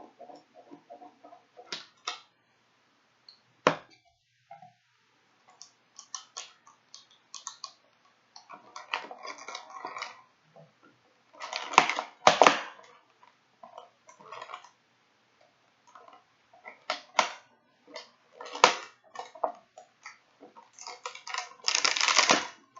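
Plastic pie container being handled and pried open: scattered sharp clicks and crinkling, with louder crackling bursts about halfway through and again near the end.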